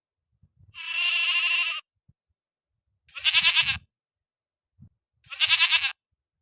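An animal bleating three times: a first call about a second long, then two shorter, wavering calls a couple of seconds apart.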